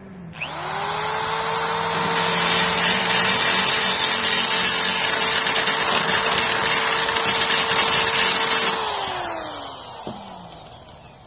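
Electric hand drill spinning up and a drill bit grinding into the steel tube frame of a mechanic's creeper, enlarging a square hole to take a caster stem. The motor holds a steady whine under several seconds of metal-cutting grind, then winds down with falling pitch near the end.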